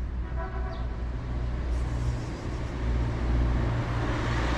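Road traffic noise: a motor vehicle going by, with a steady low rumble and a hiss that swells near the end.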